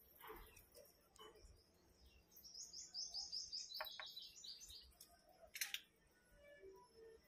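A bird chirping: a quick run of about a dozen short high notes, stepping slightly lower, starting about two and a half seconds in, with a few fainter chirps around it. A brief scratchy noise near the end.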